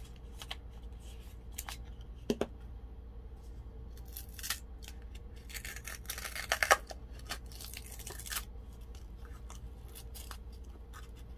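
A plastic glitter bottle being opened by hand: scattered clicks from the cap, then a short rustling tear about six to seven seconds in as the seal is peeled from the mouth of the bottle.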